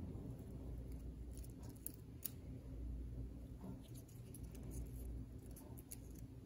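Faint, scattered light clicks and rustles of popped popcorn being picked up from a paper towel and pressed onto a paper printout, over a low steady hum.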